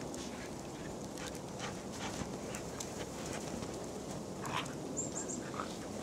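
Kelpies play-wrestling in snow, giving a few short grunting play vocalizations, the clearest about four and a half seconds in, over a steady background hiss.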